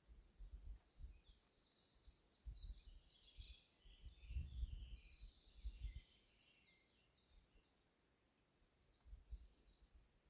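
Faint songbird singing, a run of quick high trills and chirps through the middle, with a few more notes near the end. Irregular low rumbles of wind on the microphone underneath, loudest midway.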